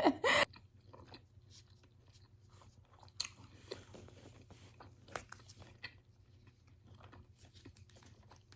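Close-up chewing and biting of a chicken wrap, quiet, with a few soft crunches and mouth clicks.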